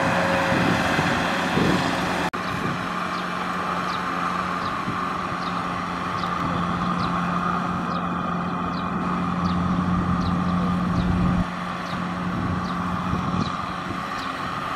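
Farm tractor's diesel engine running steadily under load while pulling a loaded trailer through mud, with a sudden break about two seconds in. A faint high chirp repeats about every half second through the rest.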